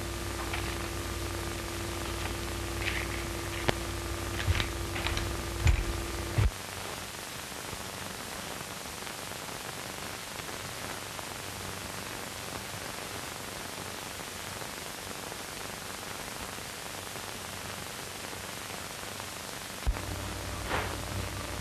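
Steady hiss of an old film soundtrack with a low hum and a held tone under it, plus a few short knocks in the first six seconds. The hum and tone cut off suddenly about six seconds in, leaving only the hiss, and come back near the end with another knock.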